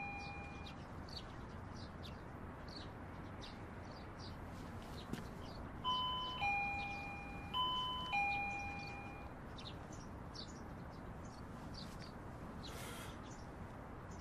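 Two-tone ding-dong doorbell chime rung twice, about six seconds in and again a second and a half later, a high note falling to a lower one each time. Birds chirp faintly throughout.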